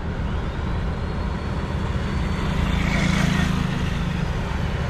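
A motorbike passing close by on the road, its engine and tyre noise swelling to a peak about three seconds in over a steady low rumble of road noise.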